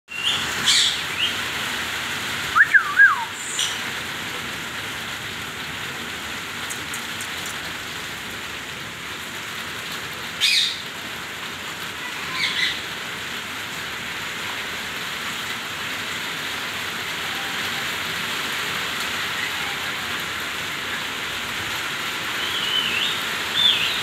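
Indian ringneck parakeet giving a few scattered short, shrill calls, with two quick gliding whistles about three seconds in, over a steady background hiss.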